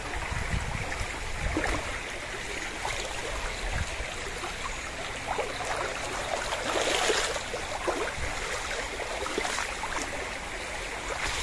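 River stream running steadily, with scattered brief clicks and a louder stretch about seven seconds in.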